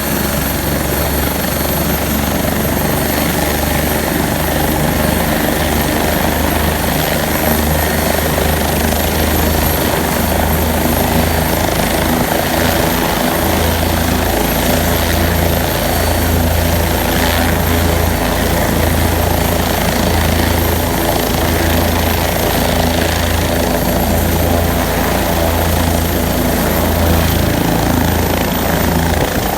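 Helicopter running close by: a loud, steady rotor and engine noise with a pulsing low beat and a thin high whine that rises slightly near the end.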